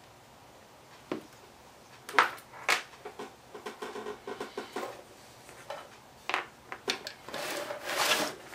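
Tools and small parts handled on a workbench: sharp clicks and knocks about two seconds in as a hand tool is set down, small rattles after it, and near the end a clatter of loose crimp terminals as a hand rummages in a plastic parts organizer.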